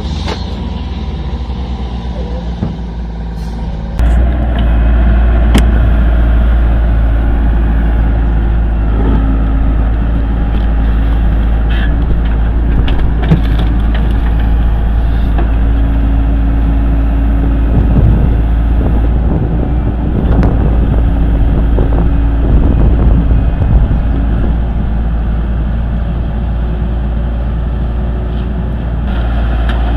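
Heavy machinery engines running with a loud, steady low rumble, stepping up abruptly in loudness about four seconds in.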